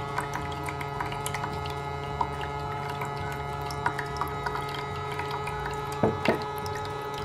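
Small electric water pump of a toy hand spa running with a steady hum, driving whirlpool jets and a fountain, with water swirling and light clicks of the water beads. Two louder knocks come close together about six seconds in.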